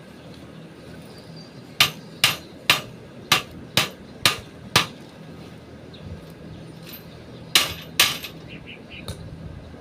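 Hammer blows: seven sharp strikes at about two a second, then a pause and two more strikes.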